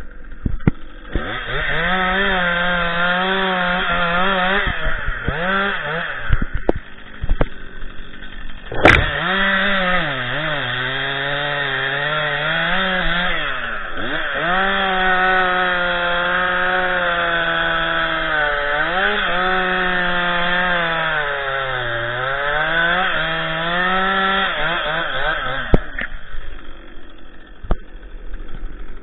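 Stihl MS 261 two-stroke chainsaw at full throttle cutting wood, its pitch sagging under load in the cut and recovering again and again, then dropping back to idle near the end. A single sharp knock about nine seconds in.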